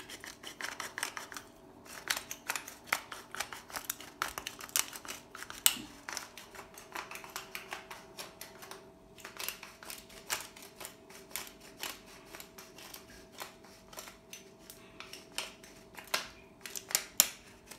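Wooden pepper mill twisted back and forth by hand, grinding black peppercorns: a fast, irregular run of dry clicks and crunches, coming in bursts with a few short pauses.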